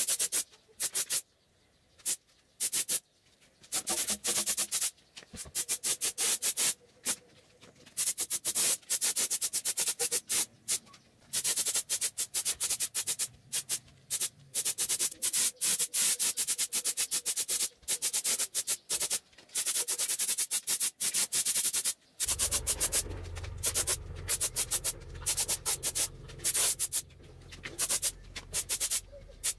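Hand sanding: quick back-and-forth rasping strokes in bursts with short pauses. A low hum comes in about three-quarters of the way through.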